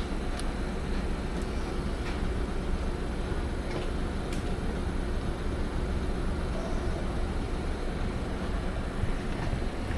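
Steady low rumble of a car idling, with a few faint clicks.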